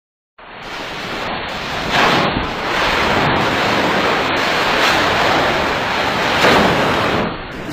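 Loud, steady rushing noise with no clear tone, swelling about two seconds in and again near the end.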